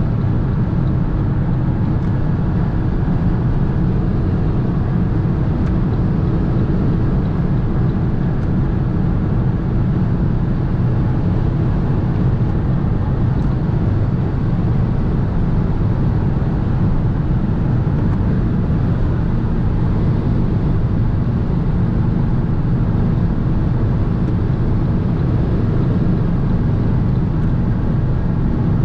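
Steady cabin noise of a 2022 Fiat 500 1.0 Hybrid cruising at highway speed: a low drone from its three-cylinder engine under road and tyre noise from its R15 Kumho all-season tyres.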